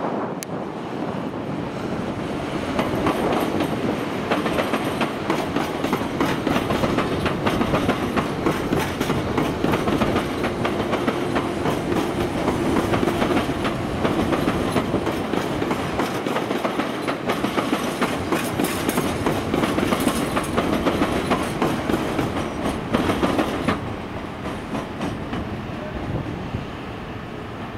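SNCB Siemens Desiro electric multiple unit running through the station pointwork, its wheels clattering rapidly over rail joints and switches. The sound stays loud until about 24 seconds in, then drops off as the train clears.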